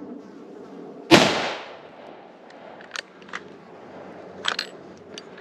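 A single rifle shot about a second in, fired at a sika stag (a five-pointer), with a short echoing tail fading through the forest. A few sharp clicks follow.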